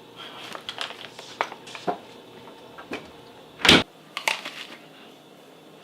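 A run of sharp crackles and clicks, with one loud knock about three and a half seconds in, followed by a few more clicks.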